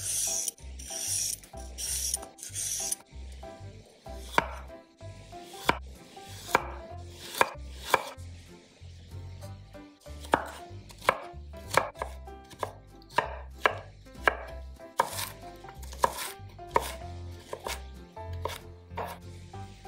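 A Y-shaped vegetable peeler scraping the skin off a carrot in a few quick strokes. From about four seconds in, a kitchen knife slices and then chops the carrot on a bamboo cutting board, with sharp knocks of the blade on the wood that come faster near the end.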